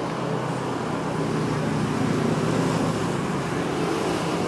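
A steady low engine hum with road-traffic-like background noise.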